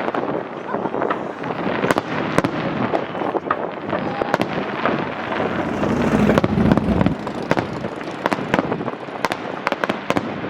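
Fireworks going off: a dense, continuous crackle with many sharp bangs, and a deeper, heavier boom about six to seven seconds in.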